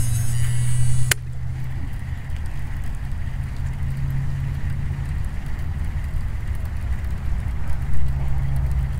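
A steady low rumble runs throughout, with one sharp click about a second in, while a baitcasting reel is cranked through a retrieve.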